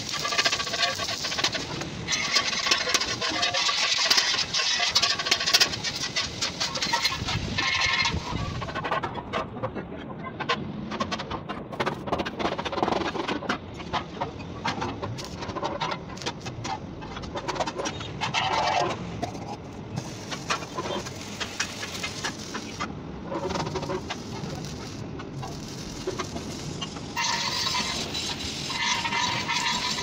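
Arc welding crackling and hissing on a galvanized steel water-heater tank, with many irregular metal knocks and taps through the middle stretch. The welding crackle starts again near the end.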